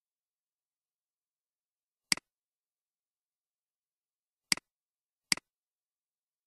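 Three computer mouse clicks, each a sharp click with a softer second click just after it, with silence between them.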